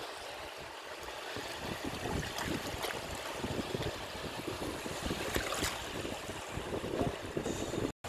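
Small waves washing and lapping in shallow seawater close to the microphone: a steady rush of water with irregular splashes. The sound drops out abruptly right at the end.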